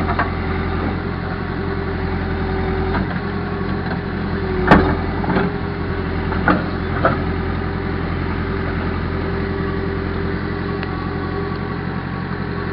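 Caterpillar backhoe's diesel engine running steadily, a quiet even hum. A few sharp clanks cut through it, the loudest a little under five seconds in and two more about two seconds later.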